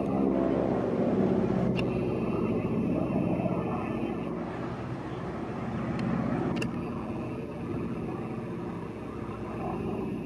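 Piston engines of two vintage biplanes droning in flight, the engine note rising and falling as they fly past.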